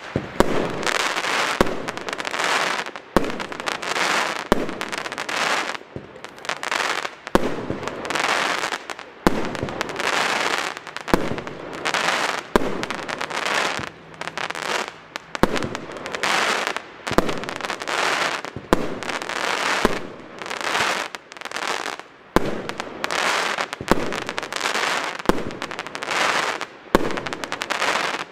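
FUNKE Duplex-Cracker Rain firework battery (cake) firing shot after shot, about one every second and a half, each launch followed by a burst of crackling stars.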